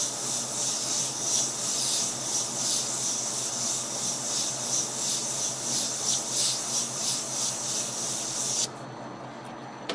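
Yellow 3M abrasive strip held against the rim of a 1977 Suzuki RM125 crankshaft half spinning in a lathe: a steady rubbing over the lathe's hum, smoothing out corrosion pitting on the steel. The rubbing stops abruptly near the end, leaving the lathe running more quietly.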